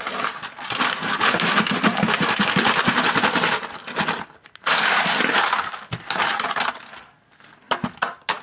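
A metal ice cream canister being twisted back and forth in a barrel of broken ice cubes, the ice grinding and clinking against the metal as it shifts and packs around the canister. It comes in two long bouts with a short pause about four seconds in, then a few scattered clinks near the end.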